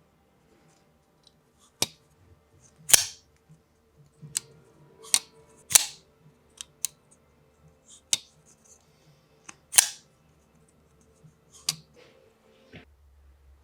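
Civivi RS71 folding knife being opened and closed again and again: about a dozen sharp, separate clicks and snaps at uneven intervals, a few with a brief ring after them.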